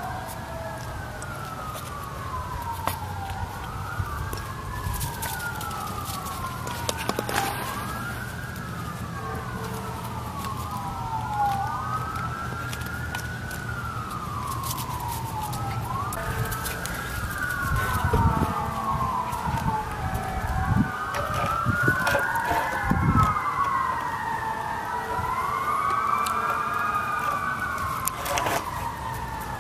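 Emergency-vehicle sirens wailing, their pitch sliding down and back up every few seconds, with two or more sirens overlapping from about halfway through over a steady low hum. A few sharp knocks stand out.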